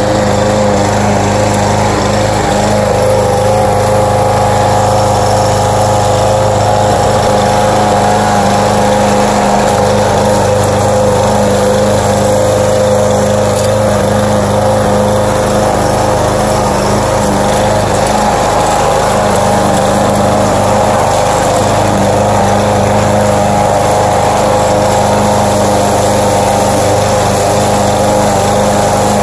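Walk-behind gasoline lawn mower's small engine running steadily at constant speed while mowing grass.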